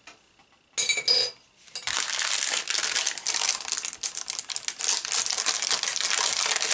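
Clear plastic bag crinkling as hands work ribbon spools out of it: a short burst about a second in, then steady crinkling from about two seconds in.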